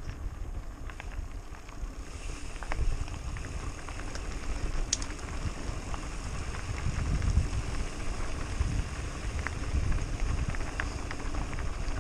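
Mountain bike rolling down a loose gravel dirt track: wind buffets the helmet-mounted microphone as a steady low rumble, with scattered clicks and rattles from the tyres and bike over the stones.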